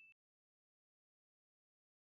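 Near silence: the last faint ring of a ding fades out at the very start, then dead digital silence.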